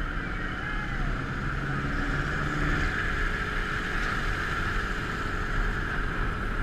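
Motorcycle on the move: a steady rush of wind and road noise over a low engine rumble.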